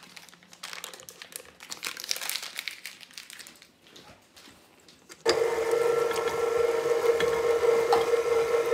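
Paper butter wrapper crinkling, then about five seconds in a KitchenAid stand mixer switches on and runs steadily with a motor hum, its flat beater mashing boiled potatoes.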